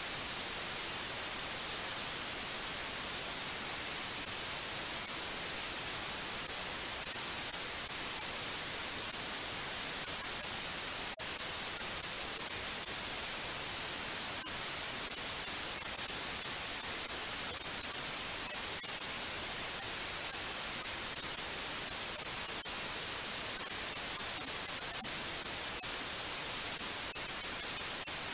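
Steady white noise: an even hiss, strongest toward the high end.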